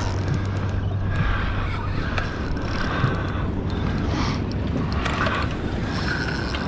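Spinning fishing reel being cranked to bring in a hooked redfish: a swishing, clicking sound that repeats about once a second with each turn of the handle, over a steady low hum.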